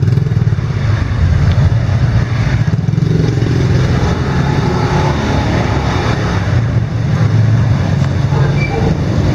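Motorbike engines running at low speed, a steady low drone with a slight rise in pitch a few seconds in.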